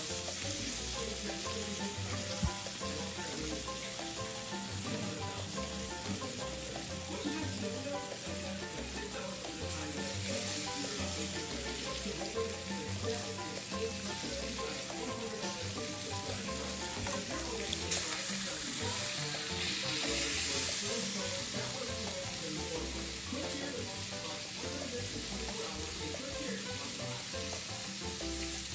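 Food sizzling in hot oil in a pan: a steady sizzle that swells a little about ten seconds in and again around twenty seconds in, with a few light knocks.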